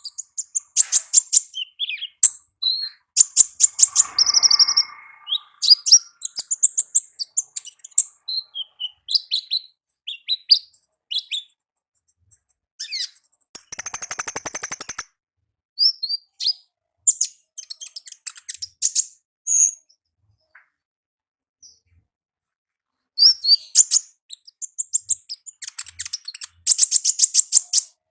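Konin ninja (a sunbird) singing in its wild 'ngalas' style: bursts of rapid high chirps and trills, with a loud buzzy rattle about fourteen seconds in and a short pause a few seconds later.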